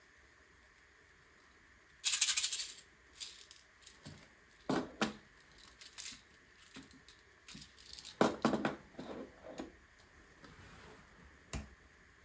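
Small plastic LEGO pieces rattling and clicking as they are handled and sifted on a table: a loud rattle about two seconds in, then scattered rattles and clicks, and one dull knock near the end.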